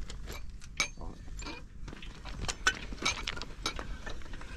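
Irregular metallic clinks and knocks from a hand-cranked mine-shaft windlass as it is turned to wind up the rope.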